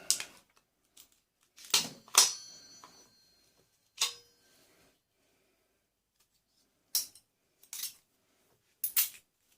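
About seven sharp metallic clinks and knocks of microwave parts being handled and pried apart, a couple of them ringing briefly, with silent gaps between.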